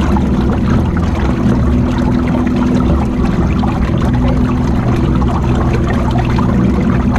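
Water churning and splashing around a moving electric float boat, loud and steady, with a steady low hum underneath.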